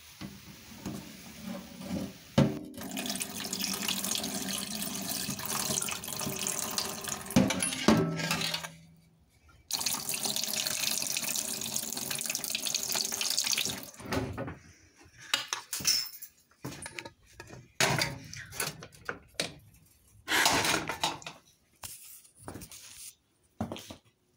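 Kitchen tap running into a stainless-steel sink while something is rinsed under the stream, with a few knocks. The water stops about eight and a half seconds in, starts again a second later and stops for good about fourteen seconds in, after which there is scattered clatter and knocking of things handled at the sink.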